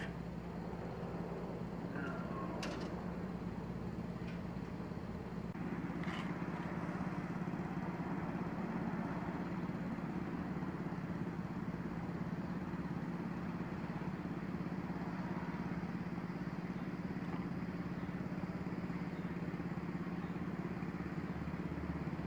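A motor running steadily with a low, even hum, and a few light clicks in the first several seconds.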